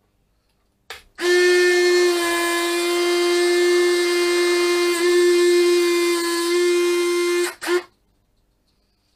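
Electric landing-gear mechanism of an RC L-39 model jet running, triggered from the transmitter: a steady, even electric motor whine for about six seconds, with a brief buzz just before it starts and another just after it stops.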